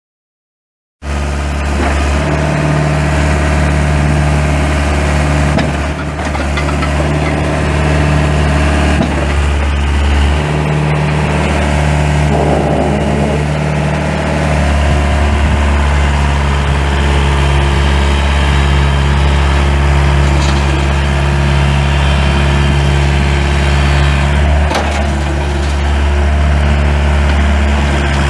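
Four-cylinder Yanmar 4TNV98 diesel of a Takeuchi TB175 mini excavator running steadily, coming in abruptly about a second in.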